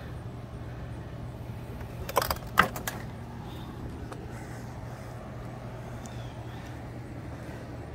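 A steady low hum with a few short clicks and knocks about two seconds in.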